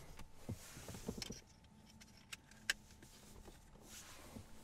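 A few faint, sharp clicks and knocks of parts being handled inside a car cabin, the loudest a single click near the middle.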